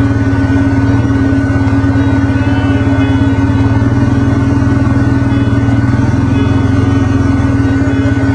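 An engine running at a steady speed, with an even, unchanging firing pulse and no revving.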